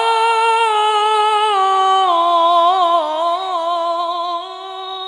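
A male qari's voice in melodic Qur'an recitation (tilawah), drawing out one long, high held note with small wavering ornaments. The note dips in pitch a couple of times and grows quieter near the end.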